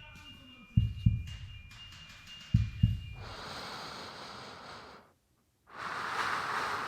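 Heartbeat sound effect: two lub-dub pairs of low thumps about two seconds apart, then an even rush of hiss from about three seconds in that breaks off briefly near five seconds and comes back.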